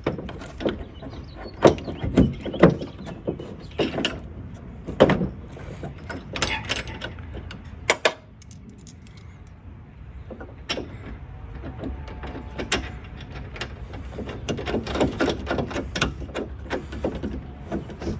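Irregular clicks, knocks and scrapes of a plastic stabilizer pad being handled and pressed into place against the sheet-metal inner panel of a van's rear door, quieter for a few seconds near the middle.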